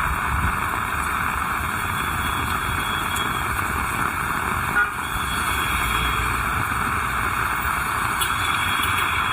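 Heavy rain falling, a steady dense hiss, with a short sharp tap about halfway through.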